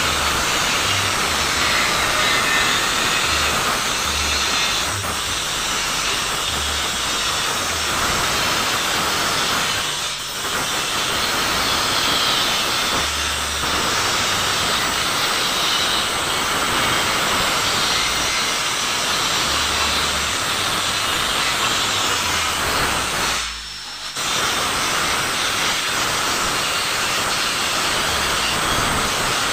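Compressed air hissing steadily from an air-line tool, cutting out briefly twice.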